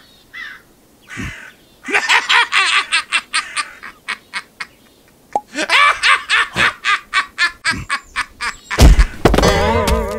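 A cartoon character's rapid, high-pitched cackling laugh in two runs. About nine seconds in there is a loud low thump, then music begins.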